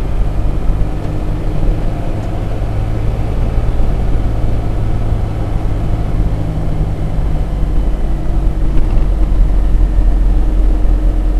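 Steady engine hum and road noise of a vehicle driving at a constant pace, heard from inside the cab.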